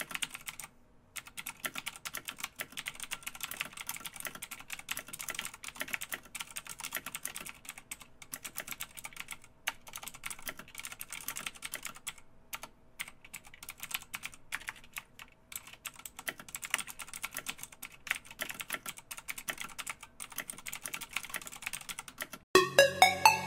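Typing on a computer keyboard: uneven runs of key clicks with short pauses between words. Music with a fast steady beat starts suddenly and loudly near the end.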